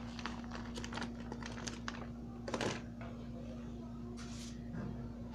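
A spoon stirring rice pudding in a pot: a run of small clicks and scrapes against the pot, with a louder scrape about two and a half seconds in, over a steady low hum.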